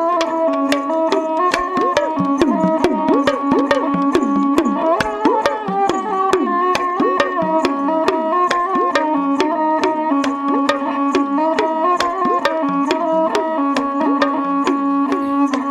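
Instrumental Punjabi dhadi music: a hand drum plays rapid, regular strokes with bending pitch glides over held, stepping melody notes, with no singing.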